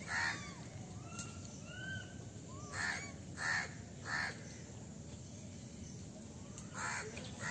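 Crows cawing: about five short, harsh caws, three of them in quick succession in the middle, with a few faint thin whistled calls in the first couple of seconds.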